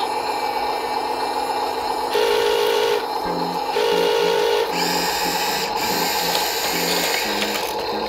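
Small toy motor and gears whirring steadily, under a simple beeping electronic tune of short alternating notes that starts about three seconds in.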